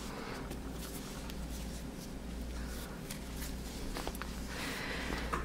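Faint rustling and soft scattered clicks of hands handling a crocheted cotton pot holder and a crochet hook, over a steady low hum.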